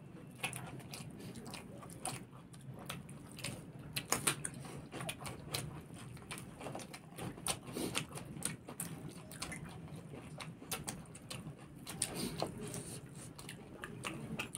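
Close-up eating sounds: people chewing rice and food eaten by hand, with many small irregular wet mouth clicks and smacks.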